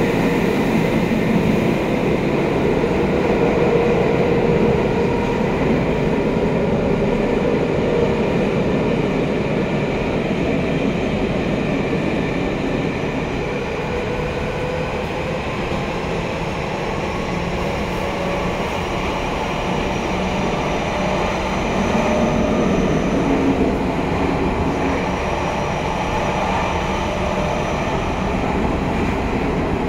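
Tokyo Metro Tozai Line subway train running through a tunnel, heard from inside the car: a steady rumble of wheels on rail with a faint whine above it.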